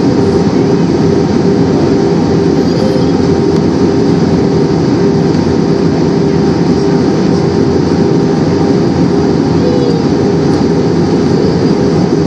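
Steady cabin noise of a jet airliner in flight, heard from a window seat over the wing: the engines' drone and rushing airflow, with a few steady low hum tones underneath.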